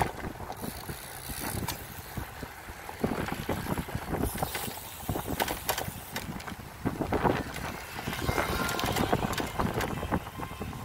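Bicycle rolling along a paved path, with wind buffeting the microphone and frequent sharp clicks and rattles from the bike over the pavement.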